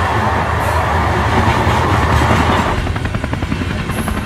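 Steady rumbling of a vehicle in motion. About two-thirds of the way in it changes to a rapid, even pulsing.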